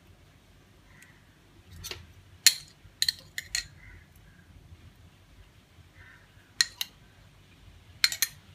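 Metal spoon clicking and clinking against a plate as seasoning is spread over fish steaks: a run of sharp clicks about two to four seconds in, two more near seven seconds, and another couple near the end.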